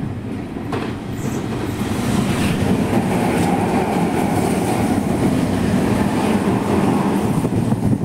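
Meitetsu electric commuter train running through the station at speed without stopping: wheels rumbling and clattering over the rails. It grows louder over the first couple of seconds, then holds steady as the cars go by.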